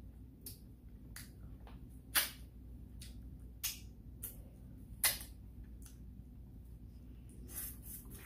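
Wet mouth smacks and lip clicks while chewing food, a sharp smack every second or so, loudest about two and five seconds in, with a quick run of them near the end.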